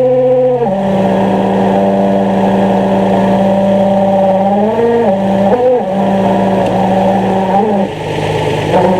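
2003 Nissan 350Z's V6 engine running with a steady high squealing whine from the clutch, which stops abruptly under a second in, leaving the engine running steadily with a few brief wobbles in pitch. The squeal comes with the clutch pedal pressed in, and the owner takes it for a bad throwout bearing.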